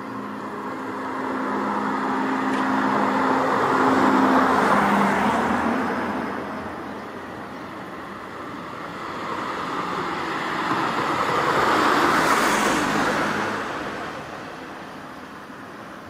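Two road vehicles pass one after the other, their tyre and engine noise swelling and fading. The first is loudest about four seconds in, the second about twelve seconds in.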